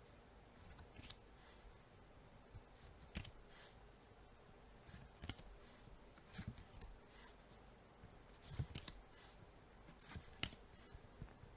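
Near silence with faint, irregular clicks and short rustles, like small objects being handled.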